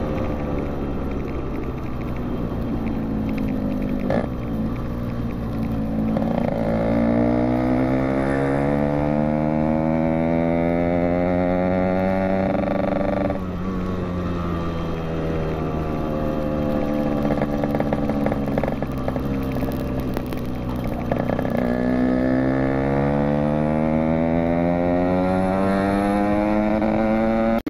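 Yamaha RX-King's two-stroke single-cylinder engine being ridden: its pitch sinks as it slows, then climbs steadily as it accelerates from about six seconds in. It drops suddenly at a gear change near thirteen seconds, sinks again, and climbs once more from about twenty-one seconds.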